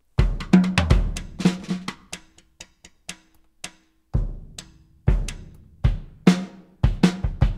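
Sampled vintage drum kit (the Abbey Road Vintage Drummer Ivory kit) played from a pad controller: kick drum, snare and cymbal hits in a loose, irregular pattern, sparse for a couple of seconds in the middle and picking up again after about four seconds.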